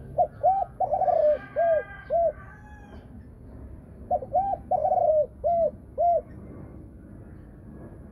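A caged pied Thai-bred spotted dove hen coos two phrases, about two seconds apart, each of about five notes. Each phrase ends in two clear closing notes, the 'two-ending' deep 'thổ sấm' voice that breeders prize.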